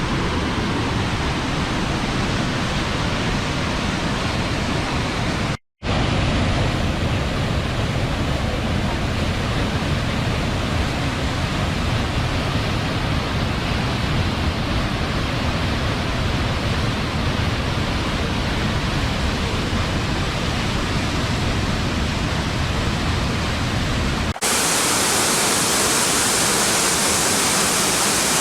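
Steady rushing roar of a waterfall. A brief dropout comes about six seconds in, and near the end the sound cuts abruptly to a brighter, hissier rush of falling water with less low rumble.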